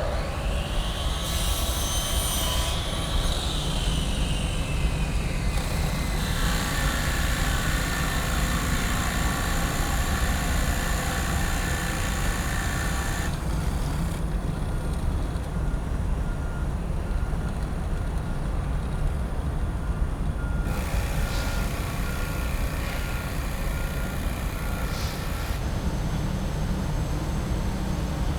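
Steady low engine rumble of heavy machinery and vehicles. A falling whine sounds in the first few seconds, and a run of short, evenly spaced beeps comes in the middle.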